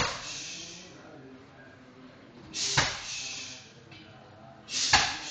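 Three hard strikes on a heavy punching bag, about two and a half seconds apart. The first is a roundhouse kick. Each lands with a sharp smack, with a short hiss just before it.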